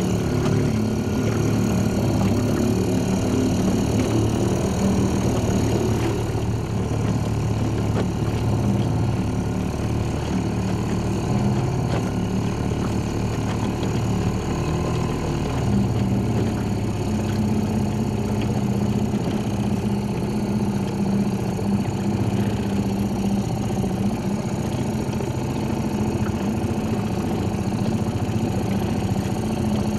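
Small tiller-steered outboard motor running steadily, an even low engine hum.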